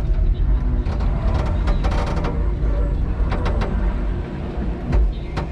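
Electric forklift truck driving, with a steady low rumble and scattered sharp knocks and rattles.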